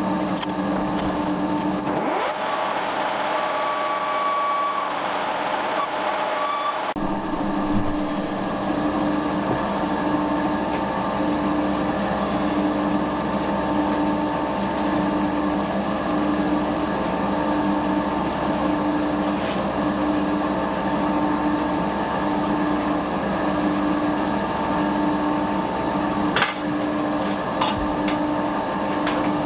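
Steady hum of a running workshop machine motor, with an even pulsing in its tone. It drops out for about five seconds near the start, and a single sharp metallic clank comes near the end.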